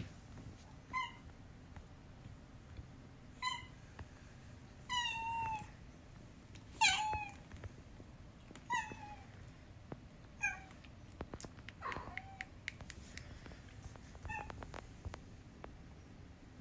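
A month-old kitten mewing: about eight short, high-pitched mews a second or two apart, each dropping in pitch at the end, the loudest about seven seconds in. A few faint clicks come partway through.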